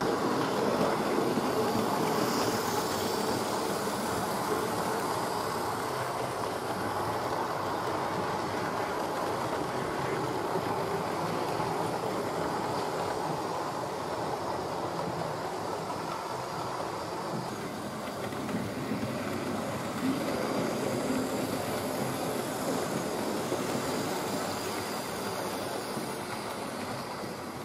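Model railway train running on the layout's track: a steady whirring noise from the locomotive's motor and the coaches' wheels rolling along the rails, easing a little near the end.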